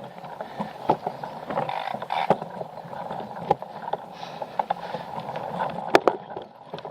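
A small mechanism whirring steadily, with scattered sharp clicks.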